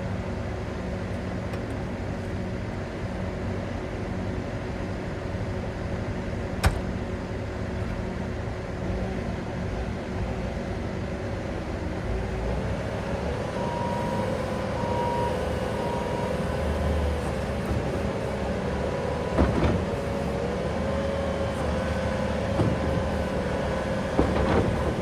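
Bobcat S770 skid steer's diesel engine running steadily, then picking up speed about halfway through. Three short beeps follow just after, with a sharp click about seven seconds in and a couple of knocks near the end.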